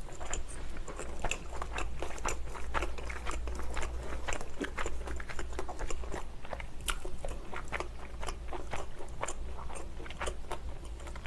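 Close-miked chewing of a thin-crust cheese and steak pizza: a continuous run of small crisp crackles and crunches as mouthfuls of crust are chewed, over a steady low hum.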